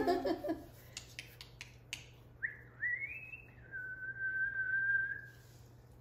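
Whistling: two short rising whistles, then one long steady whistle lasting about a second and a half. A brief voice sound comes right at the start, followed by a few light taps.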